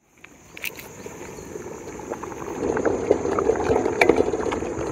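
Water sloshing and splashing in a metal pot of rice being washed, with small clicks, fading in and growing louder over the first few seconds.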